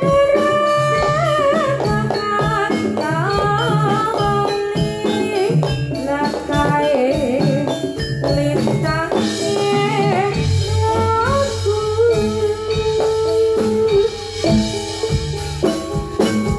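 Instrumental passage from a Javanese jathilan gamelan ensemble: a wavering, bending melody line over steady drumming. The drumming fills out with a deeper low end about ten seconds in.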